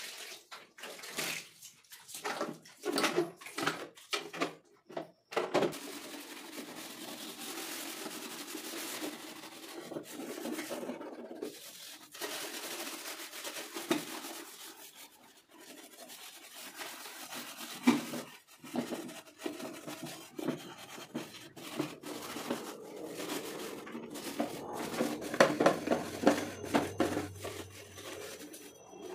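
Water splashed and poured from a mug over a stainless-steel gas stove, followed by a wire scrub pad rubbing and scraping over the wet plastic body of a kitchen appliance.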